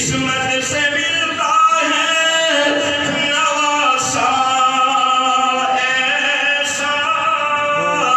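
A man's voice chanting in a sung, melodic style into a microphone, holding long drawn-out notes: a cleric's sung recitation during a sermon.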